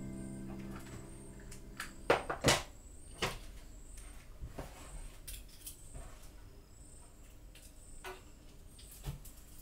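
Music fading out at the start, then scattered light clicks and knocks of small objects and tools being handled and set down on a tabletop.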